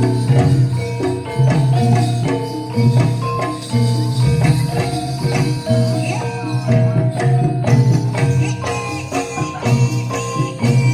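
Javanese gamelan music of the kind played for jaranan: metallophones play a busy melody of short ringing notes over a deep sustained tone and hand percussion.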